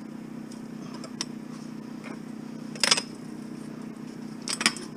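Sharp metal clanks as a thin metal frame is handled and pulled apart for scrap: a faint one about a second in, the loudest just before three seconds, and two close together near the end, over a steady low hum.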